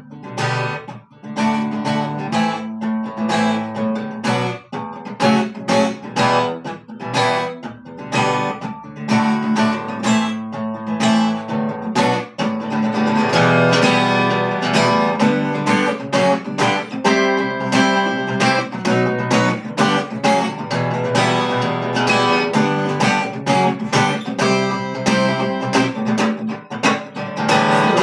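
Acoustic guitar strummed in a steady rhythm with sharp percussive muted strokes, the 'стук' (knock) strumming technique. The playing gets louder and fuller about halfway through.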